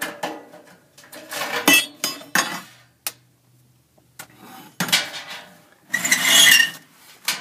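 Screwdriver and metal parts clinking and scraping against the sheet-metal blower housing of an air handler as the motor's ground wire is taken off. A series of separate clicks and short scrapes is heard, and a longer scrape about six seconds in is the loudest.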